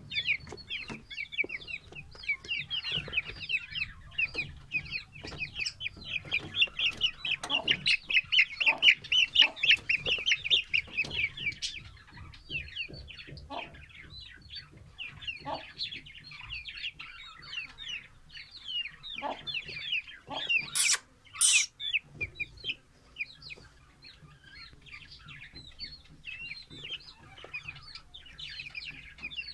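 Young Vietnam–Kala Nawab Aseel–Shamo cross chicks peeping and cheeping, rapid high-pitched calls many times a second, thickest and loudest in the first half. Two sharp clicks come about two-thirds of the way through.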